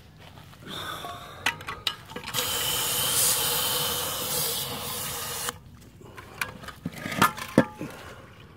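A garden hose spray nozzle sprays water into a diesel particulate filter for about three seconds, flushing soot out through it. It makes a steady hiss that cuts off suddenly. Several sharp knocks and clanks follow as the metal filter housing is handled.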